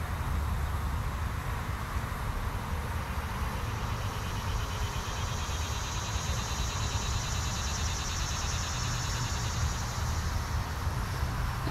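Steady low rumble, with an insect's high, finely pulsing buzz coming in about four seconds in and fading near the end.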